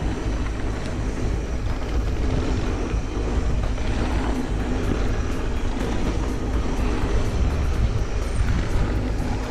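Mountain bike riding a dirt singletrack: steady wind rush on the microphone with tyre and trail noise.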